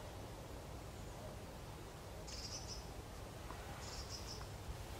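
Quiet woodland ambience: a steady low rumble, with two short, fluttering high chirps, one about two seconds in and one about four seconds in.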